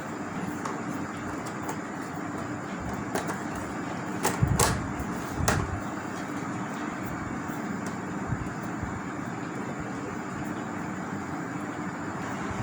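A few knocks and clicks as the LED TV's back-frame parts and screws are handled and fitted, the loudest cluster about four and a half seconds in and another knock about a second later, over a steady background hum.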